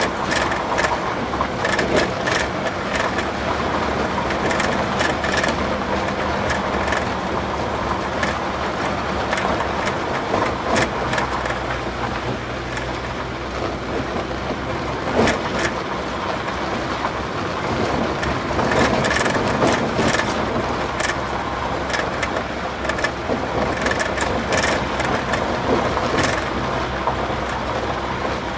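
VW Bus driving slowly on a gravel road, heard from inside the cab: steady engine hum under tyre rumble, with irregular clicks and knocks of stones and gravel against the tyres and underbody.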